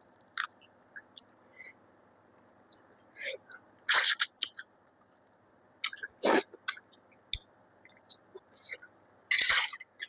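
Close-up mouth sounds of someone eating chicken curry with rice: intermittent wet smacks and chewing noises, several short sharp ones with quiet gaps between.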